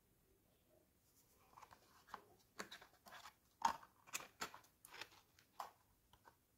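Cardboard product boxes, a cosmetic tube and a cream jar being handled: a string of small crinkles, clicks and taps, the sharpest tap just past halfway.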